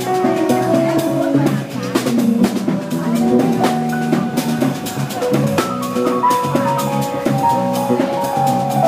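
Jazz trio playing live: electric keyboard, electric bass and a drum kit with cymbal, snare rimshot and bass drum hits.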